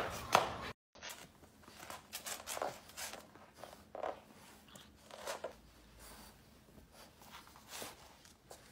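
Golden retriever puppy pawing, burrowing into and tugging at fabric bedding: short, irregular rustles and scrapes of cloth.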